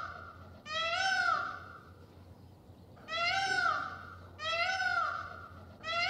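A cat meowing over and over: about four meows, each a little under a second long, rising then falling in pitch.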